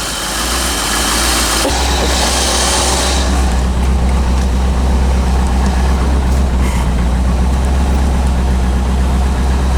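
1985 Corvette C4's 5.7-litre V8 idling steadily, cold and just started. A high hiss over the idle fades out about three seconds in.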